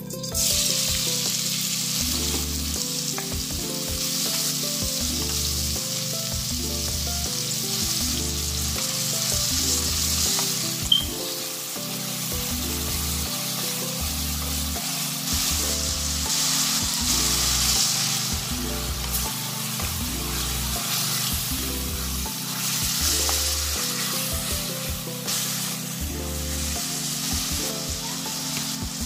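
Sliced onions and green chillies hitting hot oil and frying with a loud, steady sizzle, stirred with a wooden spatula, with one sharp click about eleven seconds in. Background music with a steady beat plays underneath.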